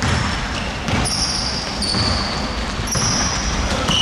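Basketball bouncing on a hardwood gym floor as it is dribbled up the court, with sneakers squeaking in short high chirps as players run and cut.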